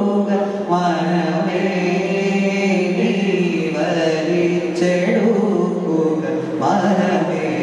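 A young male singer's solo voice singing a slow melodic song into a microphone, with long held notes that glide between pitches.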